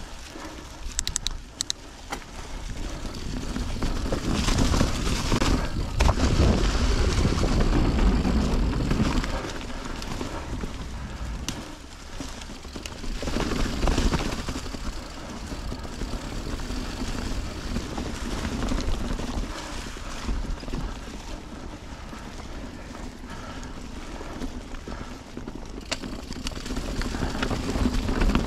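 Mountain bike ride on a dirt trail: wind rushing over the microphone and tyres rumbling on the ground, rising and falling with speed and loudest for a few seconds near the start of the ride's fast stretch, with a few sharp clicks and rattles.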